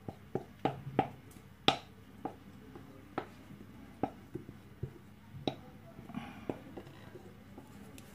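Irregular light knocks and taps as a ceramic mixing bowl is held upside down and handled to work sticky bread dough out onto a floured mat. The loudest knock comes about two seconds in.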